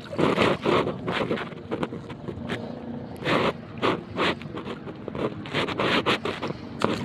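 Wet lato (sea grapes) being gathered and stirred by hand in a red plastic basin: an irregular run of short scrapes and rustles.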